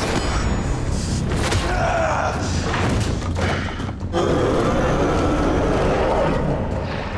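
TV fight-scene soundtrack: several heavy blows and thuds with grunting, then a louder sustained noise from about four seconds in, over music.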